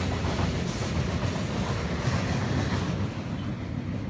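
Freight train of hopper cars rolling steadily across a steel truss railroad bridge overhead, a continuous noise heaviest in the low end.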